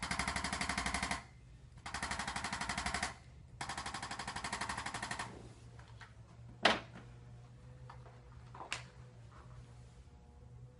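Three bursts of rapid, evenly repeated tapping, each a little over a second long, from a handheld percussive chiropractic adjusting instrument being used on the patient. After them come two single sharp knocks about two seconds apart.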